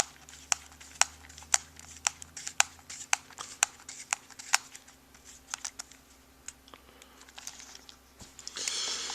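Hand screwdriver tightening a screw into the transmission case, with sharp clicks about twice a second that thin out about halfway through. A short rustle of handling near the end.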